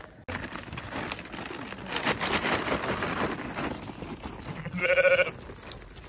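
A sheep bleats once, briefly, about five seconds in, with a wavering pitch. Before it, a rustling, crackling noise.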